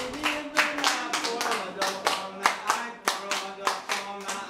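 Hands clapping in a steady rhythm, about three claps a second, keeping time.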